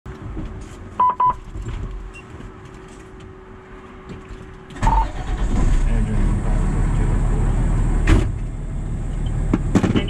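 A 2010 Pierce Arrow XT fire engine's diesel engine starting. A few short high beeps come about a second in, then the engine catches about five seconds in and runs steadily, with a single sharp knock near the end.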